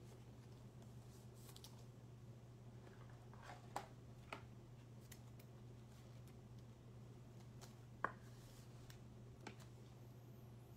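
Near silence: a steady low hum of room tone, with a few faint clicks from trading cards and their plastic holders being handled, the sharpest about eight seconds in.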